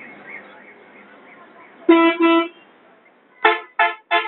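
Vehicle horn honking on a busy street: two short toots about two seconds in, then a quick run of three short toots near the end.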